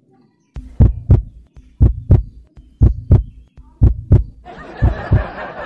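Heartbeat sound effect: paired lub-dub thumps about once a second, five beats in all, with a rushing noise coming in near the end.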